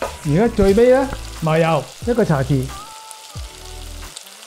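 Beef and peppers sizzling in a wok as they are stirred with a spatula, cooking in the freshly added thickened sauce. A man's voice speaking is louder than the sizzle for much of the first half.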